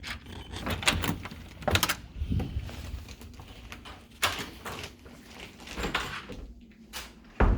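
Irregular knocks, clicks and scuffs of someone moving about a room and handling things, about half a dozen of them spread unevenly.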